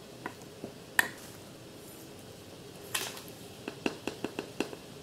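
Metal spoon clicking against a ceramic mixing bowl of grated cassava: a few sharp clinks in the first second, a brief scrape about three seconds in, then a quick run of about six light taps.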